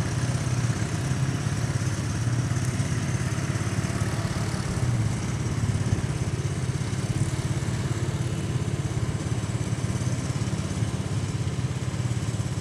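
ATV engine running steadily at an even pitch, with no revving.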